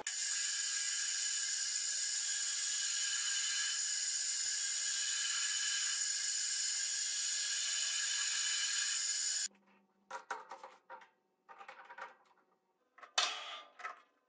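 Metal lathe running while a carbide insert faces the end of a metal bar: a steady high-pitched whine with the hiss of cutting, which cuts off suddenly about nine and a half seconds in. Scattered short clinks and knocks follow.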